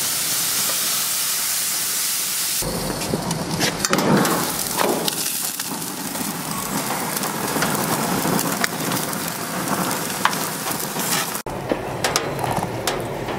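Wild hog backstrap sizzling on the hot grates of a gas grill: a steady hiss that changes abruptly to a rougher crackling, with many sharp pops, about two and a half seconds in, and changes again near the end.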